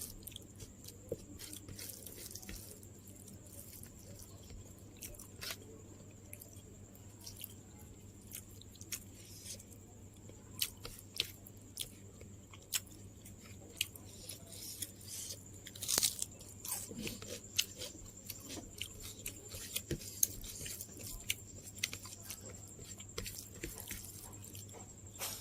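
Close-up chewing and crunching of food, with many short sharp mouth clicks, over a faint steady high-pitched whine.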